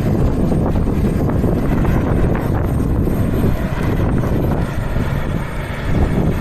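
ATR 42-600 turboprop airliner's engines and propellers running, a loud steady low noise, with wind buffeting the microphone.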